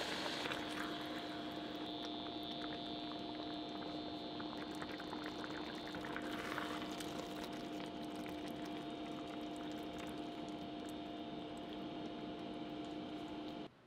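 Frying pan of oil-fried chicken breast and eggplant sizzling and bubbling as grated daikon seasoned with mentsuyu is poured in and simmers, with many small crackles.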